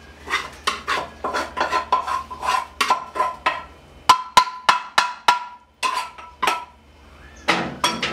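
Metal spatula and pan lid clanking against a frying pan on the stove, a quick run of ringing metallic hits about three a second, with a short pause before a last few hits near the end.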